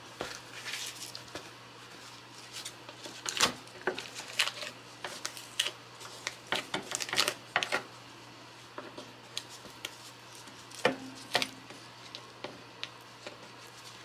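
Irregular crackles, rustles and small taps of plastic-gloved hands pressing and smoothing tape down along the edges of a wooden tray. The clusters are busiest in the middle stretch.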